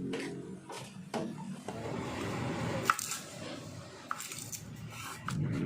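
Kitchen food-preparation handling sounds: a soft wet rustling with a few sharp clicks and knocks, like utensils or a knife touching a board or dish.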